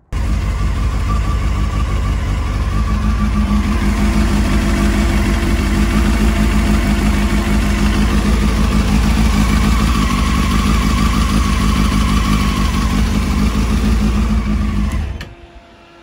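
Honda CBF600's liquid-cooled inline-four engine idling steadily, heard close up, while it warms to bring the refilled cooling system up to temperature and pressure. The sound starts abruptly and drops away suddenly about a second before the end.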